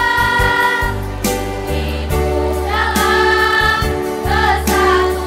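Women's choir singing sustained held notes in harmony over a low, steady bass line.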